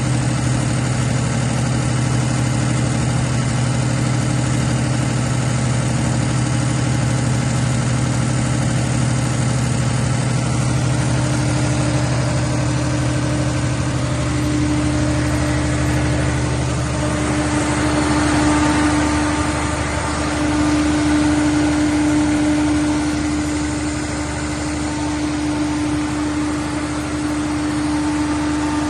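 Cummins diesel generator set running steadily at constant speed. About halfway through, a clearer, higher steady tone comes up over the engine sound.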